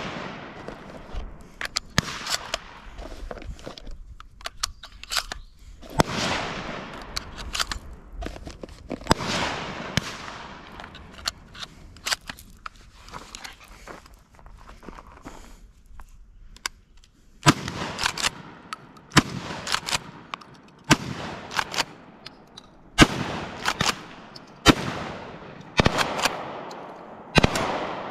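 Benelli SuperNova Tactical 12-gauge pump-action shotgun firing. A few shots are spread through the first half, then a fast string of shots comes about a second apart, with the pump worked between them.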